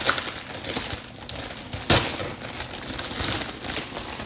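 Plastic bag of leafy salad greens crinkling and rustling as it is handled, with one sharp knock about two seconds in.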